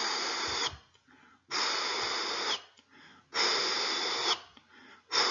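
A man imitating a holosystolic (pansystolic), bar-shaped isodynamic heart murmur with his mouth: breathy "shhh" hisses about a second long, repeated about every two seconds, each at the same intensity from start to end. This is the murmur of mitral or tricuspid regurgitation or of a ventricular septal defect.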